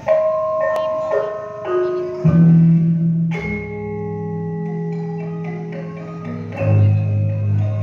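Javanese gamelan music: struck bronze metallophones ringing out a melody, joined by deep, long-ringing gong tones about two seconds in and again near the middle and toward the end.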